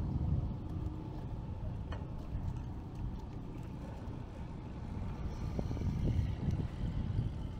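Wind buffeting the microphone: an uneven low rumble that swells in gusts, strongest just after the start and again about six seconds in.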